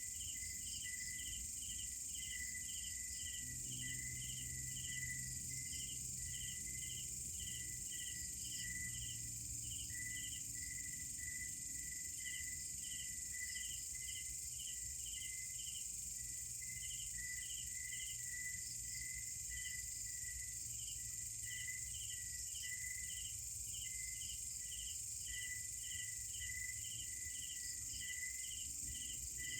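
Night-time chorus of crickets and other insects: a steady high-pitched drone with regular, quick short chirps repeating over it.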